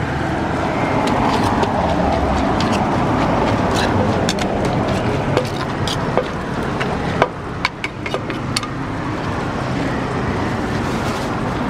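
Wooden pestle and metal spoon knocking and scraping in a clay mortar as papaya salad is tossed, a scattering of sharp clicks over a steady wash of traffic and street noise.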